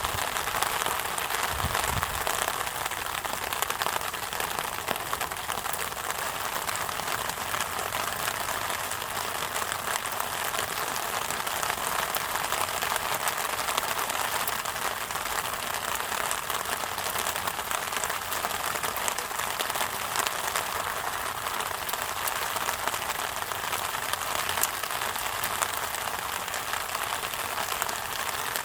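Steady rain falling, many drops landing close by, with a brief low bump about two seconds in.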